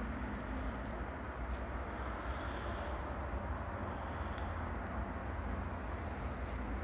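Outdoor night background: a steady low rumble with a faint hiss, and two short, faint high chirps, one about half a second in and one about four seconds in.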